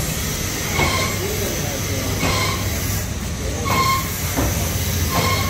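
Single-colour reel-to-reel flexographic printing machine running, a steady mechanical hum with a short squeak repeating about every second and a half as the paper web moves over the rollers.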